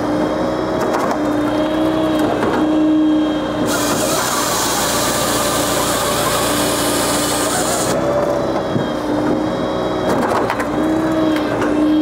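Japa 395 firewood processor running off a tractor's PTO: a steady mechanical hum from the tractor and hydraulics, with a harsh hiss from about four to eight seconds in as the saw cuts through a log. Sharp knocks of split wood come through now and then.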